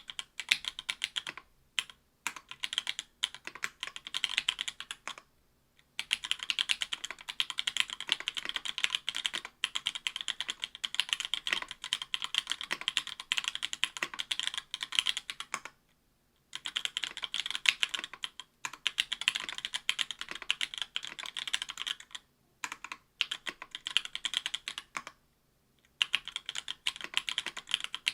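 Continuous typing on a mechanical keyboard with stock, unlubed Link Studio Jungle 62g linear switches in an aluminium plate with GMK keycaps: rapid keystroke clacks in runs, broken by brief pauses about 2, 5, 16, 22 and 25 seconds in.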